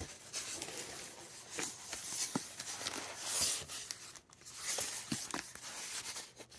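Packaging being handled and picked at by hand: irregular rustling and crinkling with a few light knocks and taps.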